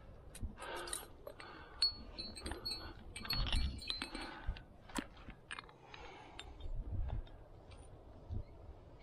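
Metal climbing gear, carabiners and cams on a harness, clinking and jangling in irregular bursts as a climber moves up a granite crack and places protection, with scrapes and rustles in between.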